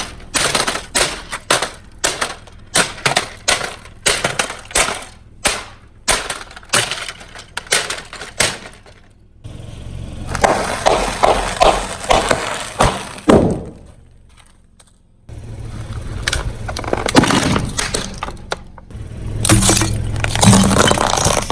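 Brittle objects cracking and breaking under a car tyre. A rapid run of sharp cracks and snaps comes first, then a longer stretch of dense crunching with a sound that falls in pitch, then more cracking over a steady low rumble near the end.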